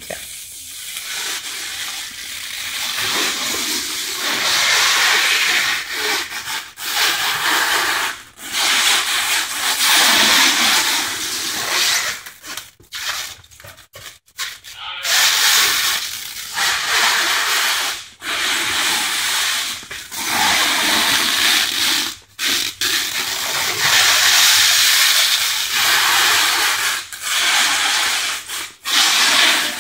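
Blue stretch film being pulled off a hand roll and stretched around a pallet of cardboard boxes: a loud, hissing crackle of the film unwinding, broken by several short pauses.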